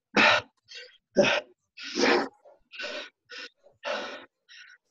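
A person breathing hard after exercise, with loud gasping breaths about once a second: catching their breath in the rest after a round of reverse lunges.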